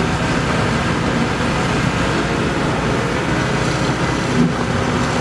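JCB Hydradig wheeled excavator's diesel engine running steadily as the machine slowly drives a trailer.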